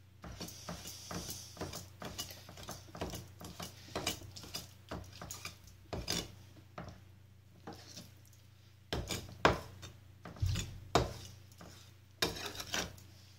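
A kitchen knife chopping raw chicken liver on a wooden chopping board: irregular knocks of the blade on the wood throughout, with the sharpest, loudest chops in the last few seconds.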